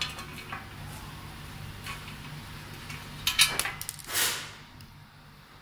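Metal stand parts and fittings being handled during assembly: scattered light clicks, a sharp cluster of metal clinks a little past three seconds in, then a short scrape.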